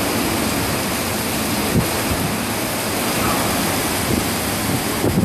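Torrential rain pouring down in strong wind, a dense and steady hiss.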